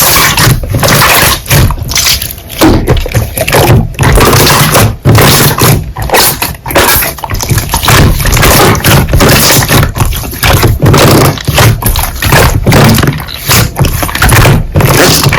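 Slime being squished and pressed by hand close to the microphone: loud, irregular sticky squelching.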